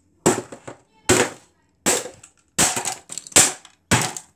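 Hammer striking a small speaker's casing to knock its cover off: about six sharp blows, a little under a second apart.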